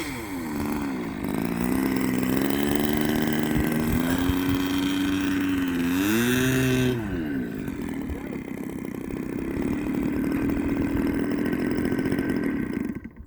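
Small gas engine of a radio-controlled P-51 Mustang model running at low throttle while taxiing in. It settles from a higher rev at the start, gets a short burst of throttle that rises and falls about six seconds in, then idles and cuts off near the end.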